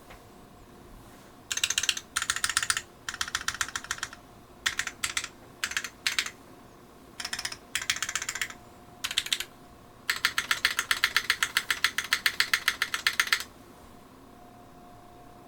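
Evaneko custom mechanical keyboard with lightly lubed Cherry MX Black linear switches on an aluminium half plate, with GMK keycaps, being typed on. It comes in several short bursts of rapid keystrokes, then one longer, faster run of typing in the last third that stops abruptly.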